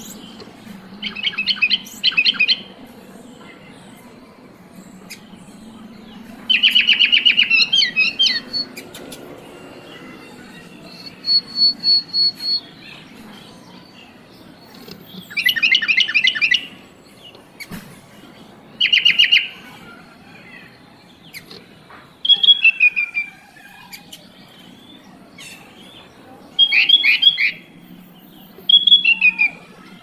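Sooty-headed bulbul (kutilang) singing: about eight short bursts of rapid chattering notes, each a second or two long, with pauses of a few seconds between them.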